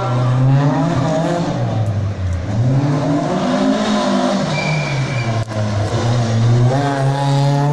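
Rear-wheel-drive competition car engine revving hard, its pitch climbing and dropping several times as the driver accelerates and lifts off. A short high squeal is heard about halfway through.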